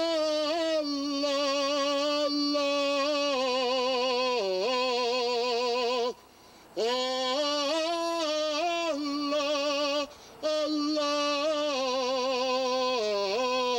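A man singing unaccompanied, holding a long wordless "oh" with a wide vibrato, in three long phrases separated by short pauses about six and ten seconds in.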